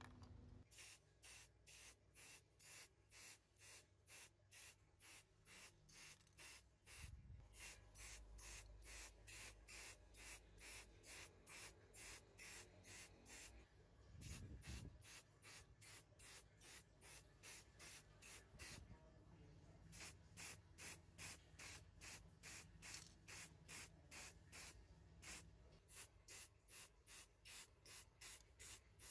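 Aerosol spray paint hissing in short, rapid bursts, about three a second, with a break in the middle and a dull bump or two from handling.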